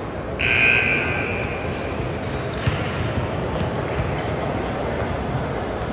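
Gym scoreboard buzzer sounding once for about a second and a half, followed by a few sharp thuds of a basketball bouncing on a hardwood floor over the chatter of an indoor gym.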